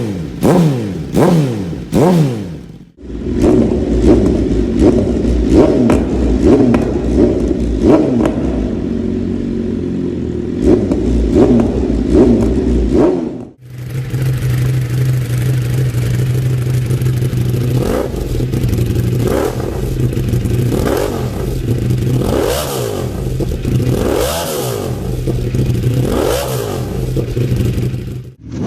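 Three 1000cc sportbikes on aftermarket exhausts, heard one after another with a hard cut between each, revved while standing: quick throttle blips whose pitch shoots up and falls back. The second and third bikes run on a steady idle between the blips, and the revs come further apart in the last stretch.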